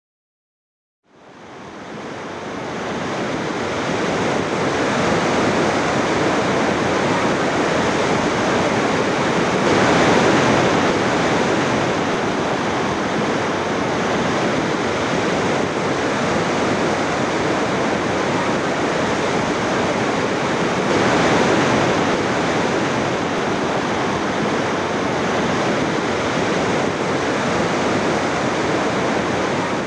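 Rushing water of a torrent in flood, a loud, steady rush that fades in about a second in and swells twice.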